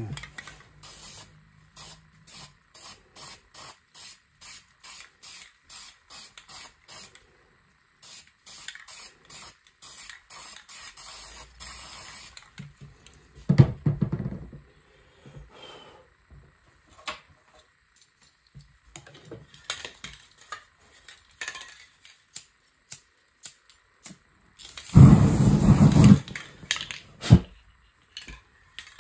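Aerosol spray paint can hissing in a run of short, evenly spaced bursts, about three a second, then in longer sprays. A louder, fuller burst comes about halfway, and a longer one near the end.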